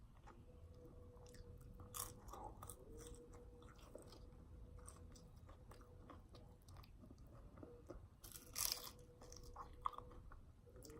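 Close-miked crunching and chewing of nachos, tortilla chips breaking between the teeth, with a louder crunch about eight and a half seconds in.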